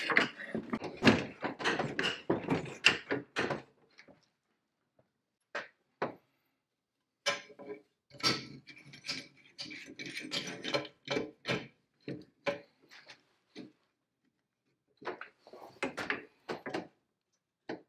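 Metal clicks and knocks from the rusty chain and toothed jaw of a J.H. Williams No. 16 chain pipe wrench being worked by hand. They come in irregular runs, dense at first and again in the middle, with short pauses between.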